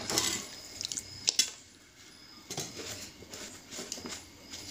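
A steel spoon clinking against a steel kadai of sugar water: two sharp clinks close together about a second and a half in, with fainter knocks around them.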